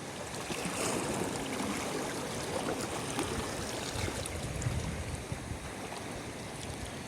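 Sea water washing and lapping, a steady wash of noise with a few faint clicks.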